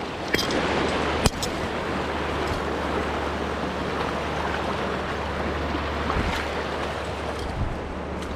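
Shallow river water rushing and splashing over limestone rock as a person wades through it, a steady rush with one sharp knock about a second in.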